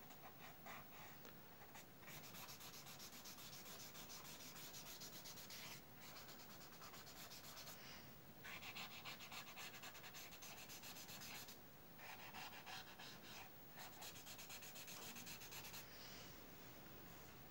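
Paper tissue rubbed quickly back and forth over graphite on drawing paper to blend pencil shading: a faint, fast scratchy rubbing in spells of a few seconds with short pauses between.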